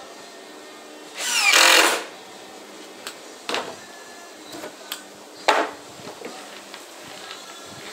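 Cordless drill running for about a second as it drives a screw into a plywood sheet, followed by a few short knocks.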